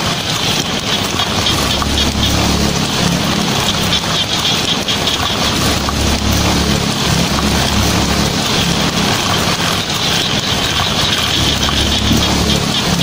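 Heavy rain drumming steadily on a tin roof, with a low rumble of thunder that swells and fades about three times.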